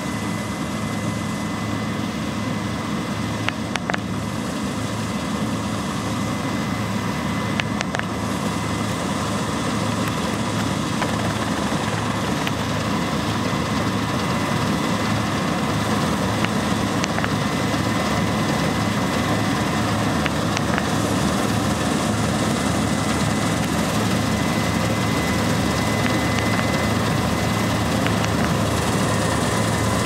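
New Holland CX820 combine harvester running under load while cutting wheat: a steady engine drone with a thin, steady high whine, growing slightly louder as the machine comes closer.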